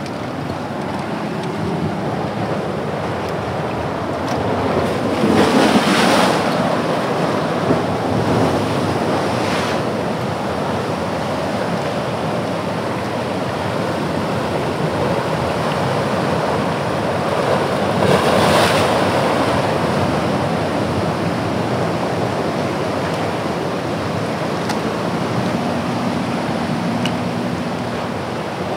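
Ocean surf washing over a rocky shoreline, a steady rush of breaking waves with two louder wave surges, one about five seconds in and one about eighteen seconds in.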